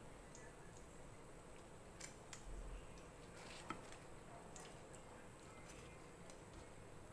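A few faint, light clicks of metal tongs against a wire-mesh strainer holding fried taro cakes, over near silence; the sharpest click comes a little past halfway.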